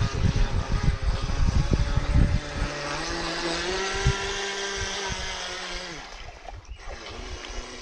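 Wind buffeting the microphone, then from about two and a half seconds in the steady whine of a radio-controlled boat's motor running at speed, fading out near the end.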